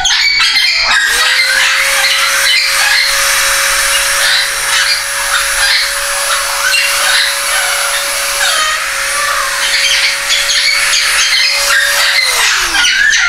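Dremel rotary tool grinding a parrot's overgrown upper beak: the motor starts about a second in, runs at a steady pitch, then winds down near the end. The parrot calls repeatedly over it.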